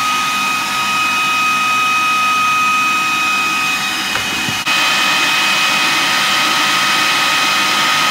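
Moulinex food processor running, its motor giving a steady high whine as it blends cooked chickpeas with their cooking water into a paste.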